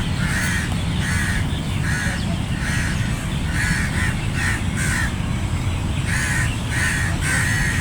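A flock of crows cawing, short harsh caws following one another about every half second, over a steady low rumble.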